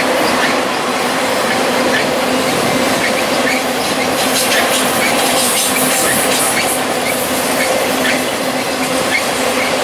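Freight train of autorack cars rolling steadily past: a continuous clatter of steel wheels on rail, with a steady low hum and scattered short high clicks.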